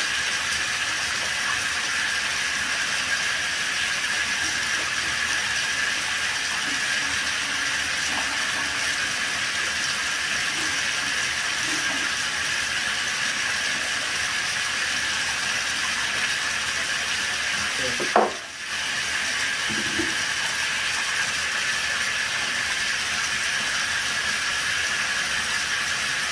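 Tap water running steadily, rinsing the cleaning solution off a car blower motor's fan wheel, with one knock and a momentary drop in the flow about eighteen seconds in.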